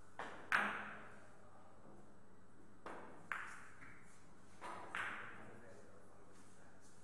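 Sharp clicks of billiard balls striking each other: three pairs of clicks about two seconds apart, each a light click and then a louder one that rings briefly, the first pair the loudest.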